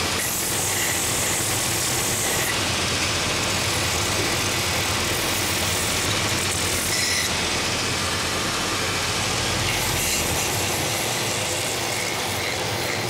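Last-sanding machine running, its coarse 24-grit, 3-inch belt grinding a wooden shoe last pressed against the drum, over a steady motor hum. The sanding hiss turns sharper for a couple of seconds at the start and again about ten seconds in.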